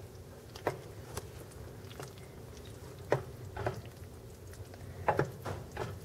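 A plastic spoon stirring thick, saucy macaroni and cheese in a baking dish: soft wet squelches, with scattered light knocks of the spoon against the dish.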